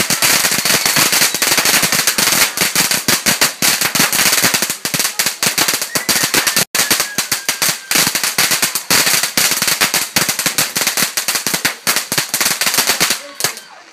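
Firework crackling: a dense, rapid run of loud cracks and pops that goes on with barely a pause, breaks off for a split second about halfway, and stops shortly before the end.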